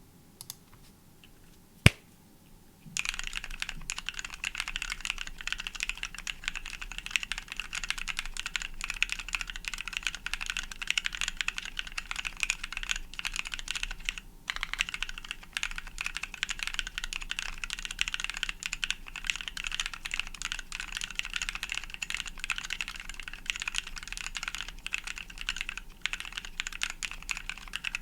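Typing on a Dimple mechanical keyboard with lubed NovelKeys Cream linear switches, a brass plate, DSA keycaps and foam between PCB, plate and case. One sharp click about two seconds in, then steady fast typing from about three seconds on, with a short pause midway.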